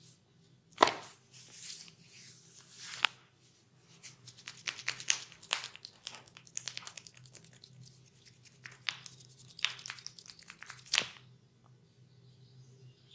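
Massage sounds of hands working on the head and skin: scratchy rubbing and crackling, broken by several sharp clicks, the loudest about a second in and near the end.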